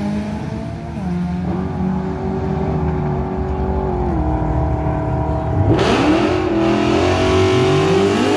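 Drag car's engine at full throttle down the strip, its pitch dropping sharply at upshifts about a second in and again about four seconds in. From about six seconds a louder, nearer engine revs up, its pitch rising.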